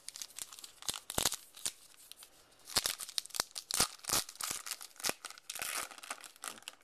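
A 2012 Topps Heritage baseball card pack being torn open, its wrapper crinkling and crackling in a series of sharp rustles, with the cards shuffled in hand.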